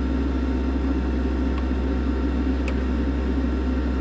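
Steady low mechanical hum that holds level throughout, with a couple of faint light ticks in the middle.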